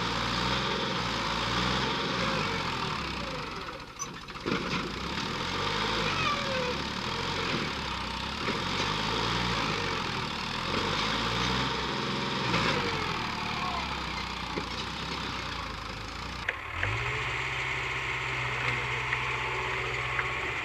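Backhoe loader's diesel engine running, its pitch rising and falling as the engine speed changes. About three-quarters of the way in the sound changes abruptly to a steady, even engine note.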